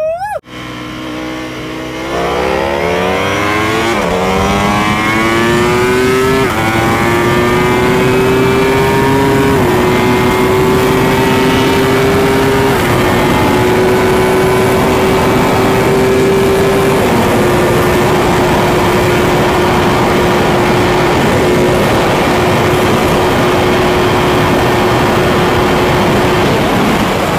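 Superbike engine accelerating hard through the gears: the pitch climbs and drops sharply at each of about five upshifts, then holds steady at speed over a constant rush of wind noise.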